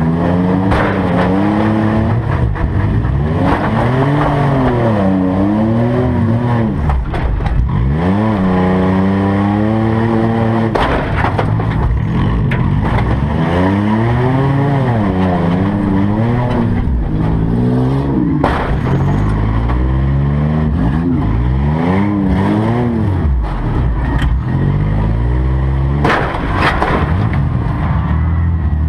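Demolition derby car's engine, heard from inside its stripped cabin, revving up and dropping back again and again. Sharp crashes of metal on metal from hits on other cars come at several points.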